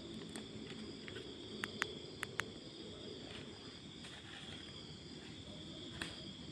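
Night insects such as crickets chirring steadily, with four short sharp clicks close together about two seconds in.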